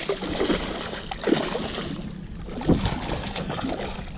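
Hooked snook splashing and thrashing at the water surface on the end of the line during the fight, in several short bursts.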